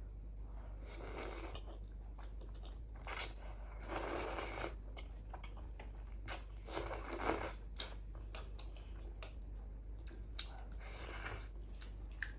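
Close-miked eating: chewing and mouth sounds, with short louder noisy bursts about a second in, around three to four and a half seconds, near seven seconds and near eleven seconds.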